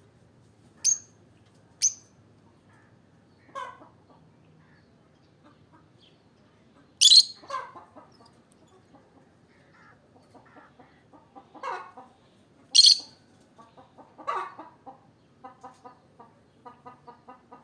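Peach-faced lovebird giving short, sharp, high chirps, about six in all, the loudest about 7 and 13 seconds in. Between them come lower, rougher calls and, near the end, a quick run of short pulsed notes.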